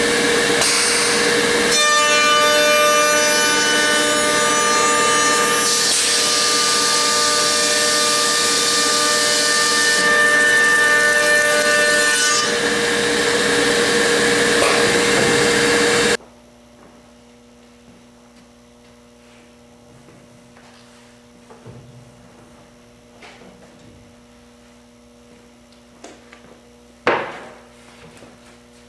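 The CSR-700 automatic stair trencher's two 3-horsepower router motors rout the tread and riser housings in a pair of wooden stair stringers. They make a steady, loud whine with several tones over a cutting noise, which cuts off abruptly a little past halfway. A low hum follows, with a few light knocks and one loud thump near the end as a finished wooden stringer is lifted and knocked against the machine.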